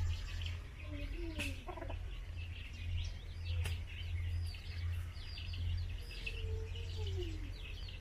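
Many small birds chirping on and off, over a steady low hum, with two sharp clicks early on and a lower drawn-out call that falls in pitch near the end.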